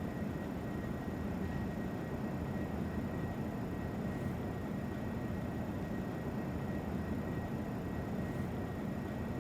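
Steady low hum and hiss with a faint high whine running under it, unchanging, with no distinct events.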